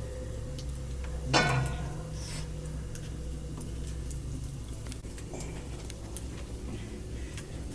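Metal cookware and utensils knocking: one loud ringing clank about 1.4 s in, then scattered light taps and clicks, over a steady low rumble.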